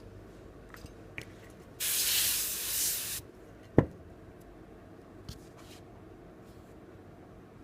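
A burst of spray hissing for about a second and a half, followed a moment later by one sharp click.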